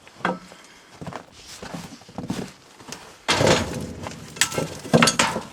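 Knocks, thumps and scraping as objects are handled and moved about, with a louder, longer rustling clatter starting about three seconds in and a few sharp clicks near the end.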